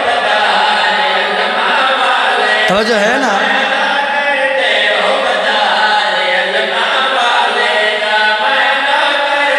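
A man chanting a devotional qasida in long, wavering melodic lines, amplified through a microphone.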